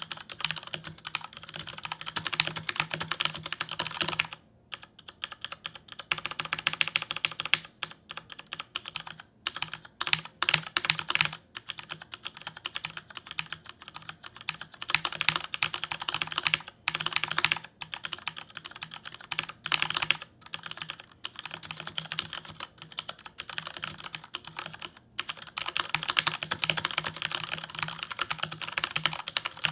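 Fast typing on a Corsair STRAFE RGB mechanical keyboard with Cherry MX linear switches, a rapid patter of keystrokes broken by a few short pauses.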